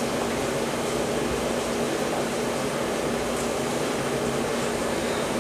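Steady whirring hum of a fan-type appliance, with a constant low drone underneath.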